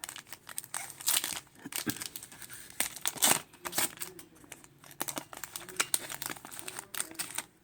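Foil wrapper of a Pokémon trading-card booster pack being torn open and crinkled by hand: irregular crackling and tearing, loudest a little past three seconds in.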